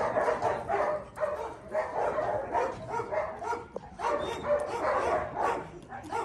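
Several dogs barking and yelping over and over, many short barks overlapping one another.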